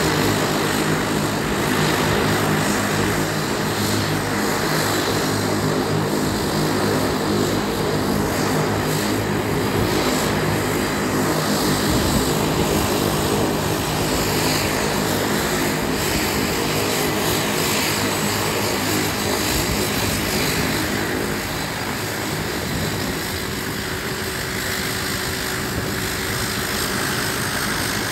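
De Havilland Canada Dash 8-300 turboprop taxiing, its two Pratt & Whitney Canada PW123 engines and four-bladed propellers running at low taxi power. The drone is steady and becomes slightly quieter in the last several seconds.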